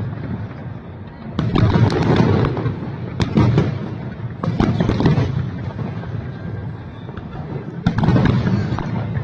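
Aerial fireworks shells bursting: about four deep booms a second or two apart, each trailing off with rumble and crackle.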